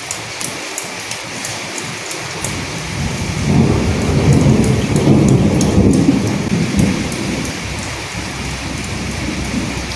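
Steady rain falling with scattered drop ticks, and a roll of thunder that rumbles in about three seconds in, swells, and dies away a few seconds later.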